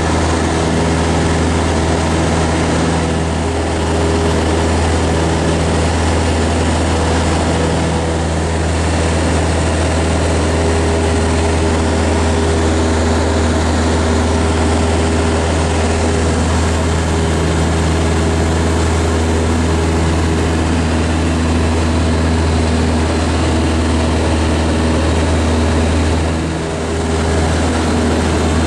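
Light propeller aircraft's engine and propeller droning steadily in cruise, heard from inside the cockpit, with two brief dips in loudness, the second near the end.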